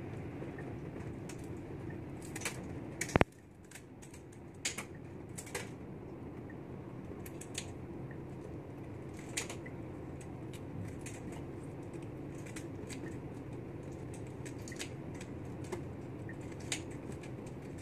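Kitchen scissors snipping through raw mantis shrimp shell, trimming off the legs and sharp edges: irregular sharp clicks and crunchy snips, one much louder about three seconds in, over a steady low hum.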